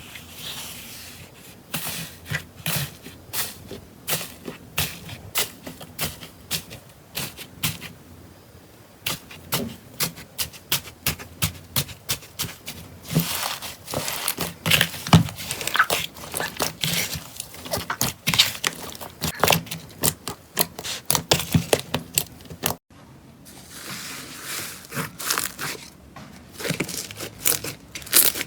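Slime being squeezed, stretched and poked by hand, giving a dense, irregular run of small sticky clicks, pops and crackles. It breaks off briefly near the end, then starts again.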